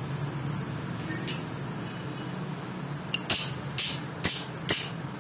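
Four sharp metallic clinks, about two a second, in the second half, each with a short high ring, over a faint steady low hum.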